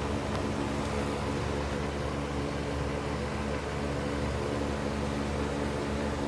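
A steady machine hum with an even hiss, like a fan or household appliance running, unchanging throughout; no breathing rhythm stands out.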